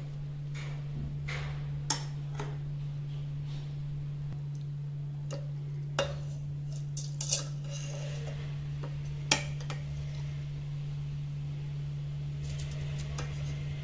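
Steel spoon clinking and scraping against a glass dish and plastic blender jar as semi-frozen milk is scooped out, with a few sharp clinks. A steady low hum runs underneath.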